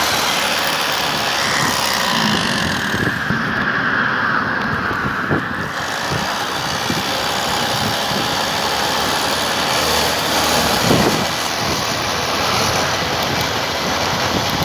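Homemade electric bike driven by a 2 kW washing-machine brushless (BLDC) motor, riding along: steady rushing wind noise buffeting the microphone, with the motor's whine gliding down in pitch over the first few seconds.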